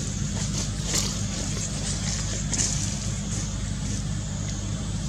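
Steady low hum under a constant hiss, with a few faint light clicks.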